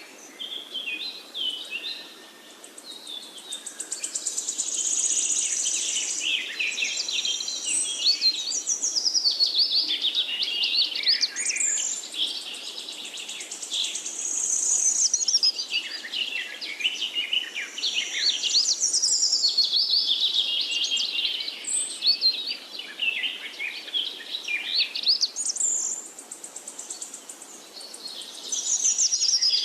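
A chorus of many birds chirping and singing at once, with quick overlapping high chirps and trills that swell and ease every few seconds.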